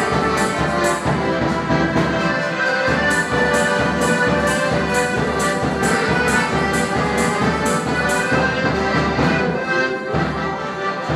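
Polish folk band (kapela) led by an accordion playing a lively dance tune, with a quick, steady beat.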